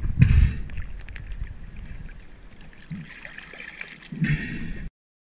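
Sea water sloshing, splashing and dripping around a diver's head-mounted camera at the surface, with heavy buffeting thumps at the start and a louder splash near the end. The sound cuts off suddenly shortly before the end.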